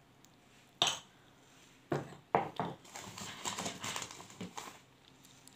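Small unglazed clay pots knocking against each other as they are handled: a sharp knock about a second in, two more a second later, then a stretch of clattering mixed with the rustle of a plastic bag.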